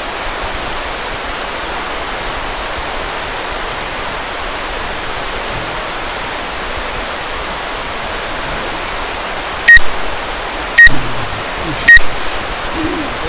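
Waterfall swollen with spring snowmelt runoff: a steady, heavy rush of water. About three-quarters of the way through, three sharp clicks about a second apart stand out, louder than the water.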